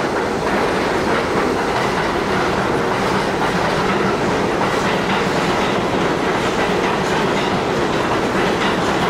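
R62A subway train running past on elevated steel track, a steady loud rumble with the rapid clatter of its wheels over the rail joints.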